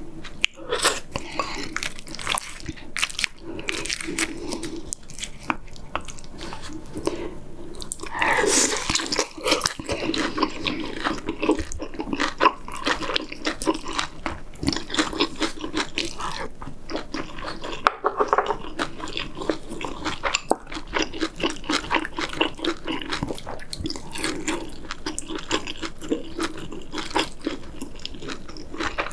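Close-miked eating of pork-rib kimchi stew with rice: wet chewing and mouth smacks with many small clicks, steady throughout, with a louder, fuller stretch a little before the middle.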